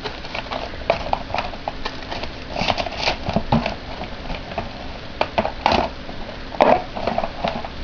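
Cardboard packaging and its contents being handled: irregular rustling and scraping with light knocks, two sharper ones near the end.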